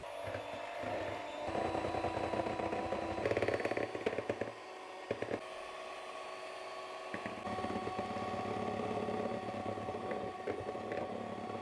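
Electric hand mixer running, its beaters whipping egg whites into meringue: a steady motor whine with the beaters clicking against the bowl now and then.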